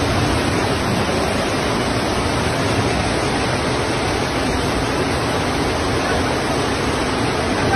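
Rushing floodwater: a loud, steady rush of noise with no breaks.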